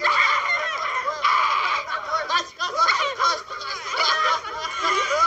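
A group of people laughing, several voices cackling over one another.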